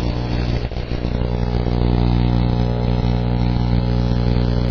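A steady, unbroken low drone with a deep hum, engine-like in character, holding the same pitch throughout.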